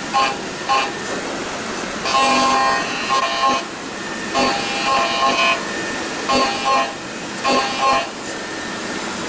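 Milling cutter on a Hwacheon L1 2500 double-column machining center cutting AL6061 aluminium at 8,000 rpm: a high whining tone that comes and goes in bursts over a steady noisy background, one long burst about two seconds in, then several shorter ones.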